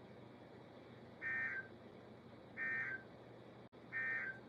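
Three short bursts of Emergency Alert System SAME digital data tones, each a buzzy two-tone squawk, about a second and a half apart. This is the end-of-message code that closes a broadcast tornado watch alert.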